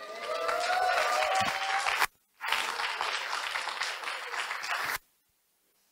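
Audience applauding, with a held, slowly rising pitched tone over it in the first two seconds. The applause drops out briefly about two seconds in, then cuts off suddenly about a second before the end.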